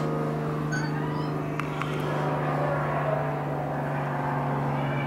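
A steady low mechanical hum at one unchanging pitch, with a fainter higher overtone above it.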